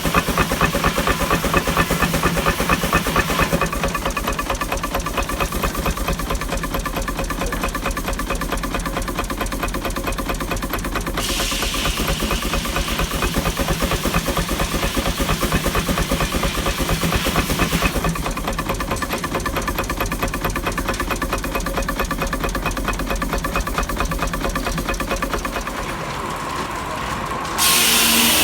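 Minneapolis steam traction engine running under load, its exhaust beating in a fast, even rhythm, with steam hissing for several seconds in the middle. A louder, noisier sound cuts in suddenly just before the end.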